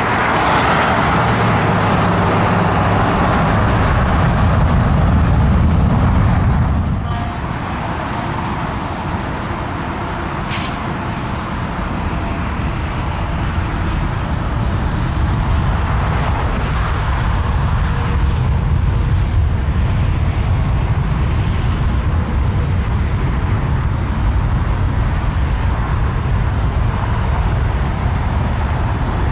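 Jet airliner engines: a steady rumble with a faint high whine. The level drops suddenly about seven seconds in, then slowly builds again.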